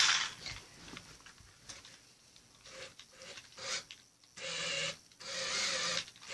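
Toy remote control car's electric drive motor and gears whirring in two short bursts, about four and a half and five and a half seconds in, with small handling clicks around them; a brief loud rustle comes right at the start.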